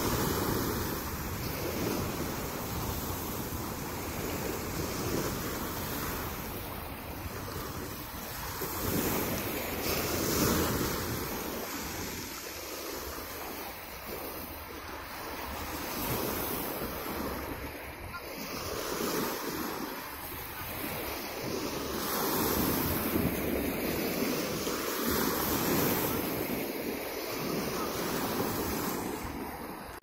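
Small Black Sea waves breaking and washing up a pebble beach. The surf swells and eases every few seconds, with wind buffeting the microphone.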